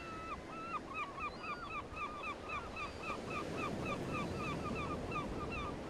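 Birds calling in a fast run of short, repeated calls, about three or four a second, over a steady background hiss.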